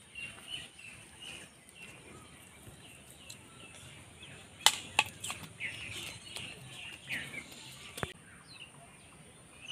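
Small birds chirping now and then, with a few sharp clicks about halfway through and one more near the end.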